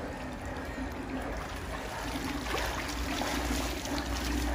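Swimming-pool water sloshing and trickling as a swimmer moves through it and climbs out, getting a little louder after about two seconds.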